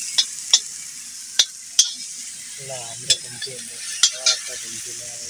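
Food frying in hot oil in a pan over a wood fire: a steady sizzle, with sharp clicks of a cooking utensil striking the pan about seven times as it is stirred. A faint voice murmurs in the background.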